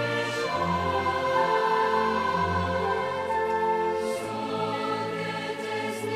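Orchestral score with a choir, sustained chords changing slowly.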